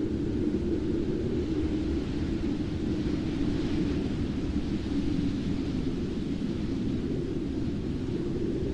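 A steady low rumbling noise that holds an even level throughout, with no distinct crackles, clicks or other separate events.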